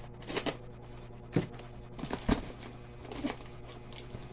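Cardboard parcel handled and picked at by fingers, trying to open the taped box without scissors: a few short scrapes and knocks, the two sharpest about a second and a half and two seconds in.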